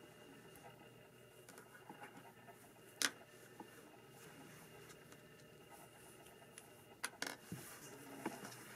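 Lego Technic plastic parts being handled and pushed onto an axle: small sharp plastic clicks and light rubbing over a faint steady background. The loudest click comes about three seconds in, and a quick cluster of clicks comes about seven seconds in.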